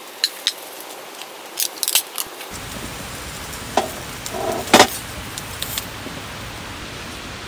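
Aluminium beer can being opened: small clicks as the finger works the pull-tab, then the sharp crack and fizz of the tab breaking the seal about two seconds in. Near the end of the first half come a few short gulps as the beer is drunk from the can.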